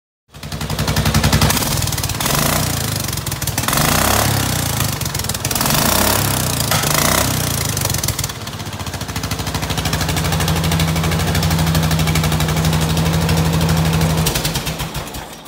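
Craftsman riding lawnmower engine running loudly through its short side exhaust pipe, its speed rising and falling a few times in the first half, then held steady until it cuts off near the end.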